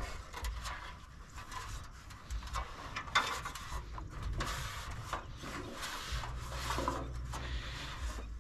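Irregular rubbing, scraping and knocking of gear handled aboard a small boat, with a low rumble from about six seconds in.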